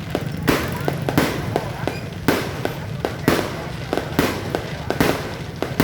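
Fireworks going off in an irregular volley: a loud bang about once a second with smaller sharp cracks in between, over a steady low hum.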